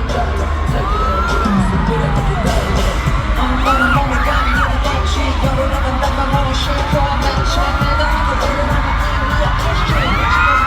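Live K-pop song played loud through a concert PA, with a heavy, pulsing bass beat, singing, and crowd screams over it.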